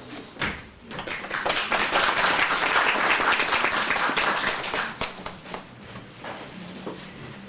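Audience applauding, building up about a second in and dying away around five seconds in, followed by a few scattered small knocks.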